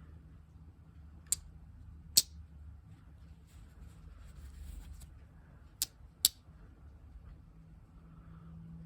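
Blades of a three-blade slipjoint pocket knife snapping open and shut: four sharp clicks, two about a second apart and then two close together further on.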